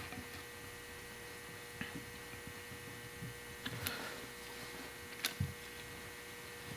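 Braided AN hose and its AN plug fittings being handled and threaded together by hand: a few faint clicks, with a sharper click and soft knock a little after five seconds, over a steady faint hum.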